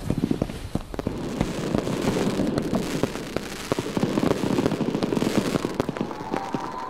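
Fireworks sound effect: dense, irregular crackling and popping.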